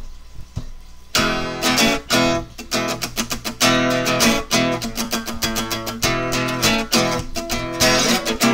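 Guitar music, strummed chords in a steady rhythm, coming in about a second in after a quieter start.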